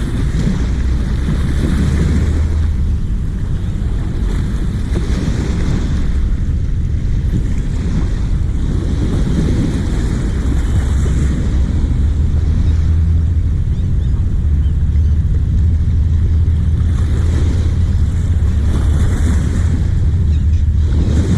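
Fast, raging river water rushing steadily, with wind buffeting the microphone in a low rumble.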